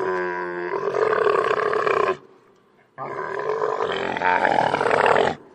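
Two long camel calls, each lasting about two seconds, with a short pause between them.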